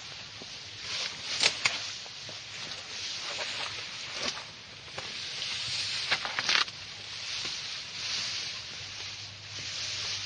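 Rustling with several sharp snaps and cracks along the way.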